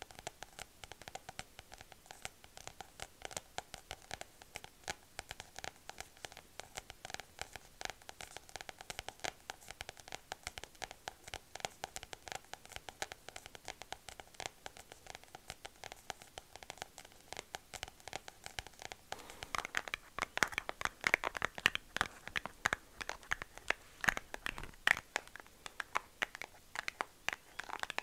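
Long acrylic fingernails scratching and tapping on a small paper gold-leaf booklet held close to the microphone: a dense stream of fast little clicks and scrapes. About two-thirds of the way in, the scratching turns louder and sharper.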